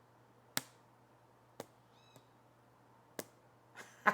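Rubber band being snapped: three sharp, short snaps about a second apart, with a faint twang in between and a louder snap at the very end.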